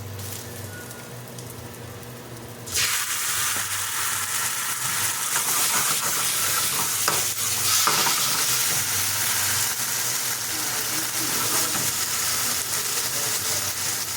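Chicken and curry sauce frying in hot oil in a pan. A low sizzle jumps suddenly to a loud, steady sizzle about three seconds in, as more goes into the pan. A few short scrapes of a utensil stirring come a little past the middle.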